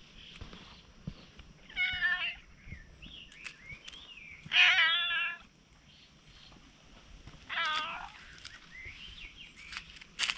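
A stray cat meows three times, about two, four and a half and seven and a half seconds in. The middle meow is the loudest and longest.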